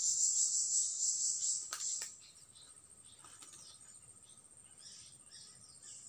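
Forest insects buzzing in a high, steady tone, with short bird chirps scattered through. Two faint clicks come about two seconds in, and the sound grows fainter after that.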